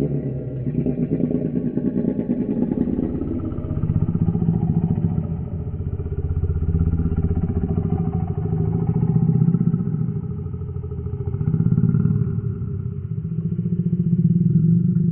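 Homemade Carnotaurus sound effect: a deep, rumbling dinosaur growl that swells and fades in several long waves without a break.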